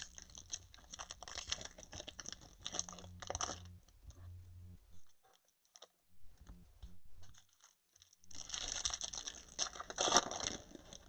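Trading card packs and cards being handled: crinkling and rustling of wrappers and cards. It is quieter in the middle and louder again near the end, with one sharper crackle about ten seconds in.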